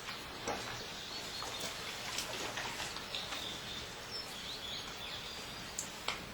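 Outdoor background noise with small birds chirping now and then and a few light clicks and knocks.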